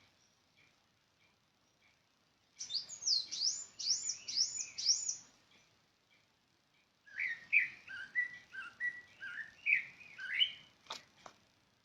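A songbird singing. Soft chips come about every half second, then two phrases of quick whistled notes: the first high and sweeping up and down, the second lower and more varied. Two sharp clicks sound near the end.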